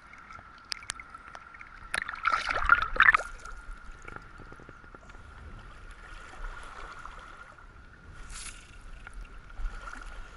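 River water splashing and sloshing as a trout is handled at the surface and let go, loudest about two to three seconds in, then the river running and lapping at water level with a smaller splash near the end.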